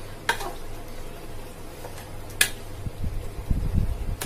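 Metal spoon stirring soup-soaked pieces of toasted bread in a ceramic bowl, with two sharp clinks of the spoon and low bumps near the end as the bowl is handled.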